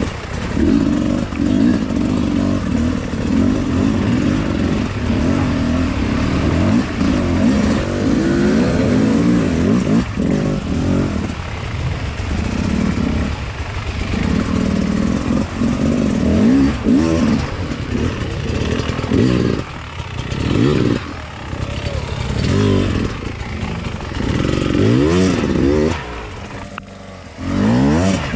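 Beta 300 two-stroke enduro bike engine revving up and down under hard throttle on a steep climb, the revs rising and falling again and again. Near the end it drops briefly to a lower, quieter note, then revs up again.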